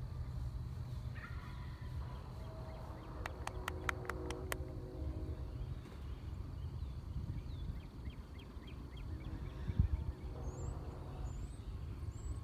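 Outdoor ambience with birds chirping, short rising chirps near the end, over a steady low rumble. A quick run of sharp clicks comes about three to four seconds in.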